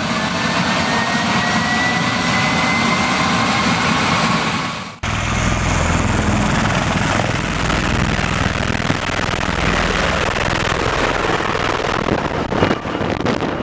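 Loud, steady rushing engine noise with a faint rising whine, cut off abruptly about five seconds in and picked up again with a deeper rumble.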